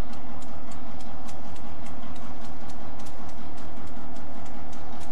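Diesel-electric freight locomotive's engine running with a steady low drone as it moves a freight train slowly forward, with light ticking about three times a second.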